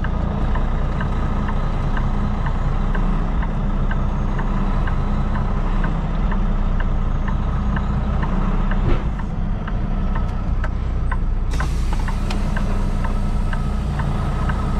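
Kenworth T680 semi truck's diesel engine running steadily, heard from inside the cab, with a light regular ticking a little over twice a second. A steady hiss comes in suddenly near the end.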